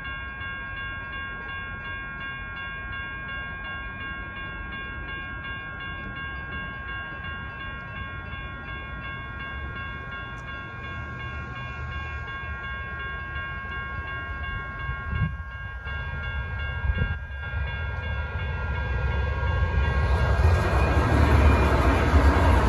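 Railroad crossing bells ringing steadily at an active crossing signal, with two brief thumps in the middle. Near the end a Sacramento light rail train (a CAF light rail vehicle) passes, its rumble and wheel noise rising until it is the loudest sound.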